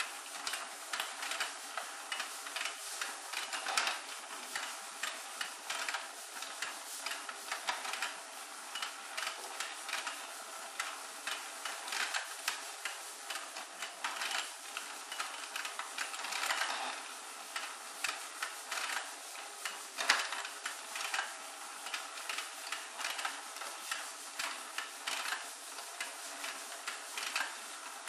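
Battery-driven Let's Go Fishin' toy game running: its small motor turns the plastic pond, with a steady, dense clicking and rattling of gears and plastic fish that goes on without a break.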